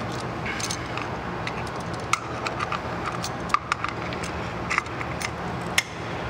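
Light clicks and clinks of metal hand tools and a brake caliper being handled on a workbench, scattered through, with sharper ones about three and a half and six seconds in, over a steady low hum.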